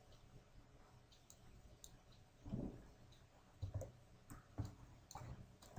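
Faint clicks of a computer mouse and keyboard, a few scattered taps, with a soft thump about two and a half seconds in.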